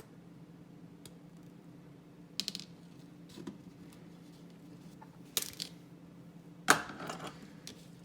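Small tungsten balls being poked out of a plastic balisong spacer extension with a metal tool: a few light metallic clicks, then a sharper clink about two-thirds of the way in with a short rattle after it, like a ball dropping and skittering on a hard surface.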